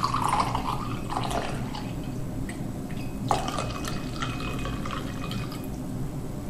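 Red wine poured from a bottle into a Waterford Lismore Black cut-crystal wine goblet, a steady splashing trickle of liquid filling the glass that stops shortly before the end.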